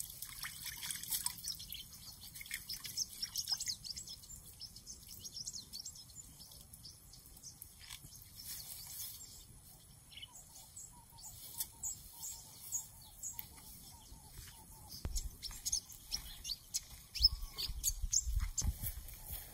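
Wild birds chirping and calling throughout, many short high notes. A few low thumps come near the end.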